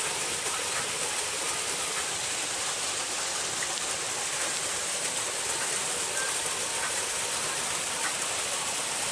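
A small waterfall pouring down a rock face into a pool, a steady, even rush of splashing water.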